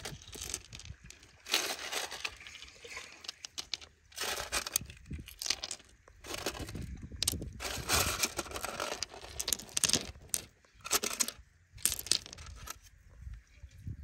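Rustling and crinkling of a dark cloth bag as a gloved hand rummages through the rough gemstones inside it, in irregular bursts with a few sharp clicks of stones knocking together.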